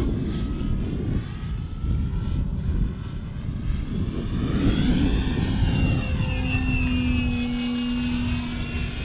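E-flite Extra 300 3D RC plane's electric motor and propeller whining in flight. The pitch swells and falls about halfway through, then holds a steady tone, over a steady low rumble of wind on the microphone.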